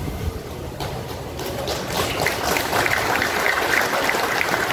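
Audience applauding, starting about a second in and building to a steady patter of many claps.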